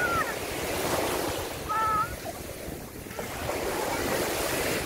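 Small waves breaking and washing up the sand in the shallows, the surf swelling twice. A short high-pitched child's call comes about two seconds in.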